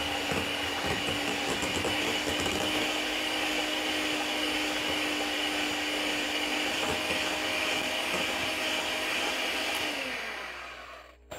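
Electric hand mixer running at a steady speed, its beaters whirring through thick cake batter in a glass bowl, with a constant motor hum. It winds down and stops shortly before the end.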